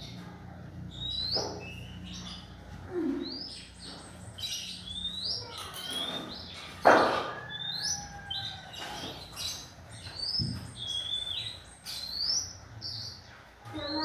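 Juvenile oriental magpie-robin practising its song: a scattered run of short chirps and rising whistles, with one louder, harsher sound about halfway through.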